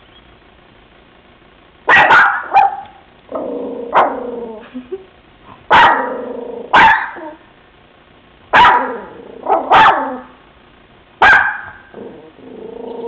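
Pet dog barking loudly at people outside: about nine sharp barks in bursts of one to three, starting about two seconds in, with lower drawn-out sounds between the bursts.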